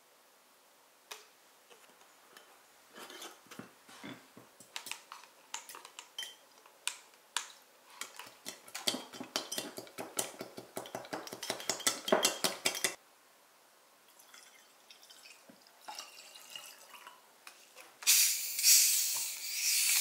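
A metal spoon stirring in a glass mug, clinking against the glass, sparse at first and then fast and steady for several seconds before it stops suddenly. Near the end comes a loud fizzing hiss as sparkling water is poured from a plastic bottle.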